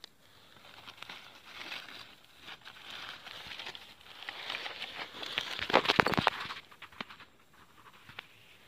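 Dry leaf litter and feathers rustling and crackling as a shot junglefowl is handled on the ground, with a louder burst of rapid crackling about six seconds in.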